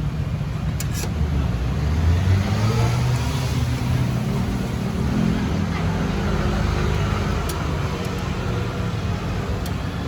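Road traffic: a motor vehicle's engine swelling in level over a steady low rumble, loudest a second or two in.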